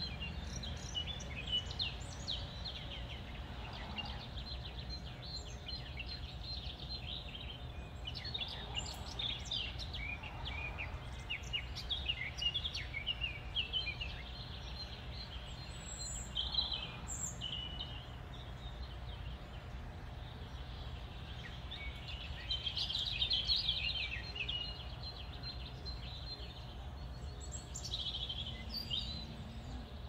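Small songbirds chirping and twittering in many quick, high calls, in clusters that come and go, over a steady low background rumble.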